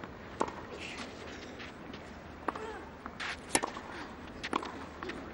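Tennis rally on a clay court: several sharp racket-on-ball hits, roughly one to two seconds apart, over a low steady crowd background.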